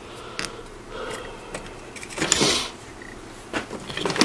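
Clicks and knocks of a Briggs & Stratton black plastic lawnmower carburetor being handled and fitted by hand, with a short noisy burst a little after two seconds in and a few quick clicks near the end.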